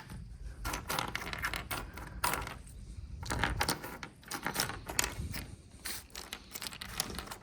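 Hands rummaging through a box of spare wiring connectors and small parts, which clatter, click and scrape irregularly against one another.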